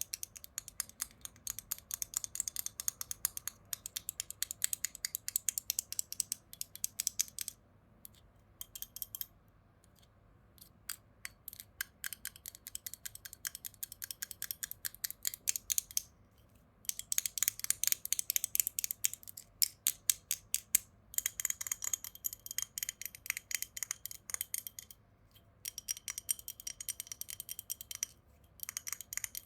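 Quick, crisp taps and knocks on a hard object, several a second, in runs broken by short pauses.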